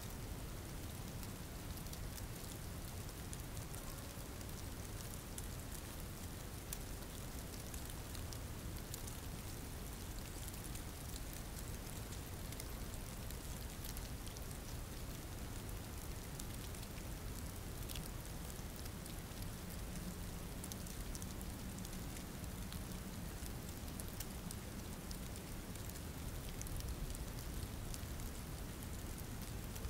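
Steady rain falling: an even hiss flecked with scattered sharp drop ticks.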